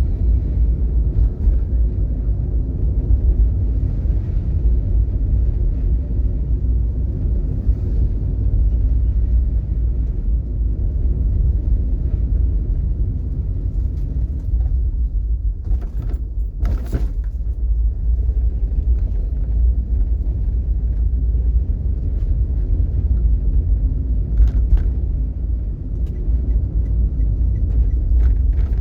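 Steady low rumble of a vehicle on the move in slow traffic, with two brief sharp clicks about midway.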